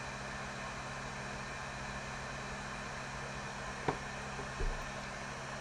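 Steady background hum and hiss, with a light click about four seconds in and a short low thump just after.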